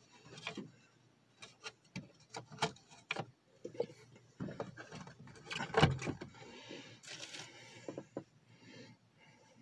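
Handling noise inside a car: scattered light knocks and clicks, with a few short bursts of rustling, as a small cardboard box and a plush doll are handled.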